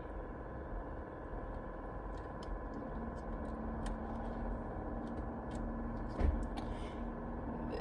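Faint clicks and small handling noises from fitting steering wheel trim parts and connectors, with one low thump about six seconds in, over a steady background hum.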